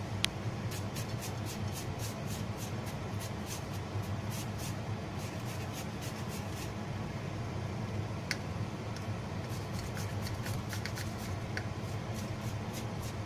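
Julienne peeler scraping down a raw carrot, cutting it into thin strips in quick repeated strokes with a short pause past the middle, over a steady low hum.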